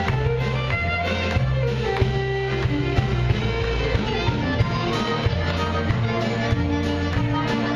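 Live Cajun dance band playing an upbeat tune: fiddle and guitar over a bass line that moves every second or so, with a drum kit keeping a steady beat.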